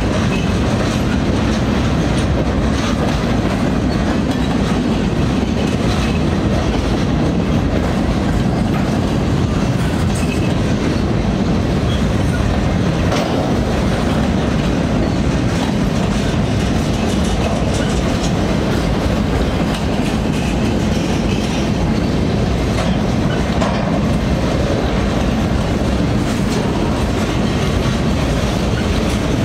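Union Pacific freight train of empty centerbeam flatcars rolling past close by: a steady rumble of steel wheels on rail with faint repeated clicks from the wheels.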